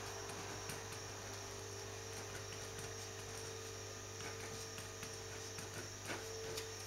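Pen scratching faintly on paper as an equation is written, over a steady low hum.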